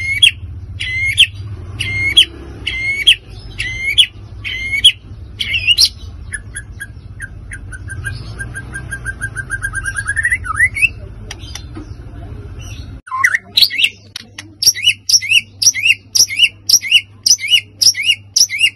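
White-rumped shama singing loudly: sharp two-note phrases repeated about twice a second, then a long rattling trill that sweeps upward at its end. About 13 s in the sound changes abruptly to a fast run of repeated whistled notes.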